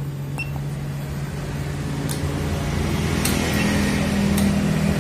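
An engine running steadily, its hum rising a little in pitch and level after about three seconds. A short beep and a few sharp clicks come from the handheld diagnostic scan tool as its buttons are pressed.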